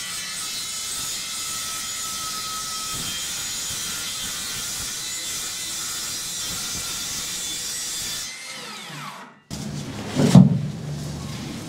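Circular saw cutting a fiberglass panel, running with a steady high whine, then spinning down about eight seconds in. Near the end there is a loud thump.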